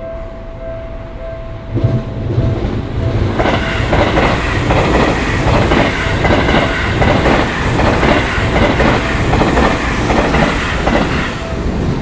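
Japanese level-crossing alarm ringing in a steady pulse, drowned out about two seconds in as an electric commuter train passes through the crossing, its wheels clacking over the rails in an even rhythm for several seconds. The crossing alarm comes back through near the end as the train clears.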